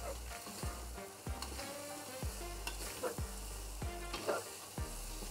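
Metal spatula stirring and scraping pieces of curry lamb around a wok in repeated strokes, the meat sizzling as it dry-fries.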